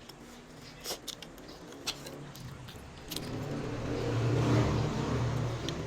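A motor vehicle's engine running close by, swelling from about three seconds in to a peak and easing off near the end. A few sharp clicks come earlier.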